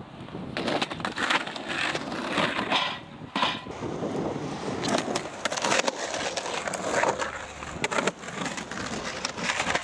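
Skateboard wheels rolling over rough, cracked concrete, with a run of sharp clacks and knocks as the board goes over bumps and edges at irregular intervals.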